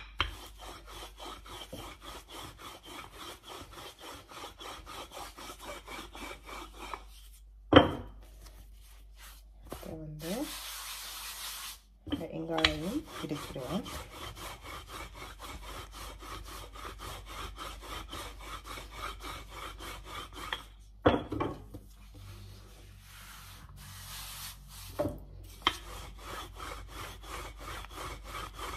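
Wooden rolling pin rolling back and forth over puff pastry dough on a floured stone counter, a rhythmic rubbing of a few strokes a second. The rolling stops briefly twice, with a sharp knock about eight seconds in and another about twenty-one seconds in.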